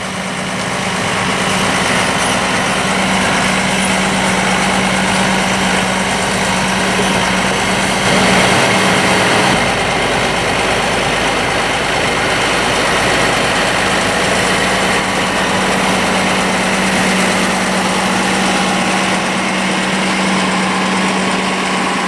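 John Deere 7420 tractor's six-cylinder diesel engine running steadily while towing a dump wagon, getting slightly louder about 8 seconds in.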